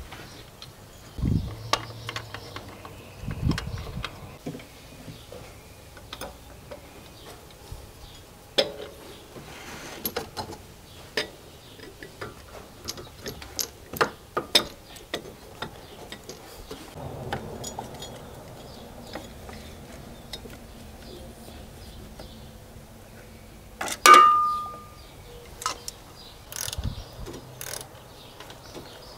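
Hand tools and metal parts clicking and knocking as pulleys are fitted to a Chevrolet LT4 V8, with bursts of ratchet-wrench clicking. A faint steady hum runs through the second half, and one loud metallic clank with a brief ring comes near the end.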